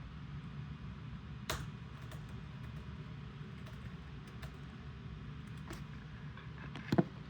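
A steady low hum with a few sharp clicks over it: one about a second and a half in, a fainter one later, and the loudest near the end.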